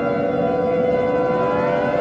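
Siren wailing: a steady tone with a second pitch winding upward from about halfway through.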